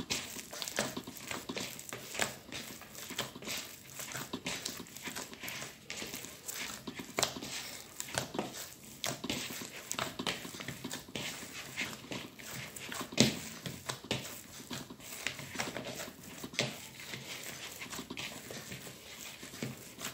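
Hands kneading a soft butter-and-flour dough in a plastic bowl: an uneven run of soft squishes and pats, several a second, with a louder knock about 13 seconds in.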